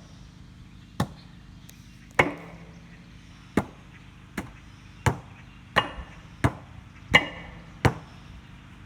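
Sledgehammer blows on an old water heater's sheet-steel shell: about nine separate strikes at a slow, uneven pace, one fainter than the rest, some with a brief ringing after the hit.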